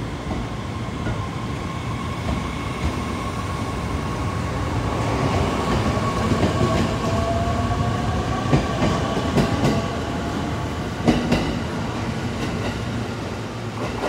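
E501-series electric train pulling out and gathering speed: a motor whine that rises in pitch, then wheels clicking over rail joints as the cars run past.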